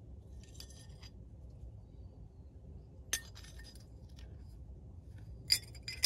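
Light clinks and clicks of a portable espresso machine's metal filter basket and magnetic dosing funnel being handled: a few faint clinks near the start, one about three seconds in, and a sharper click near the end.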